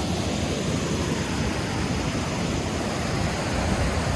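Waterfall rushing: a steady roar of falling water, with no change through the stretch.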